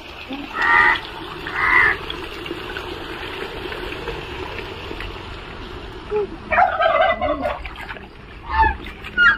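Domestic fowl calling in short bursts: two quick calls about a second in, a louder, longer call around six and a half seconds, and two more near the end.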